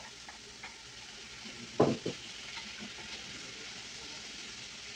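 Diced tomatoes and onion sizzling in hot oil in a frying pan as a wooden spoon stirs them, with one loud knock about two seconds in.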